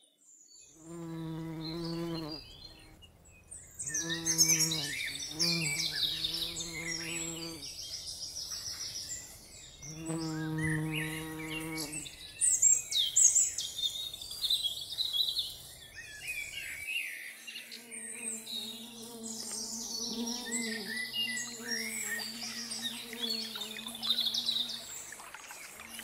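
Birds chirping and singing. Beneath them, a low sustained tone sounds in four long stretches in the first half, and a steady, slightly wavering low drone takes over past the middle.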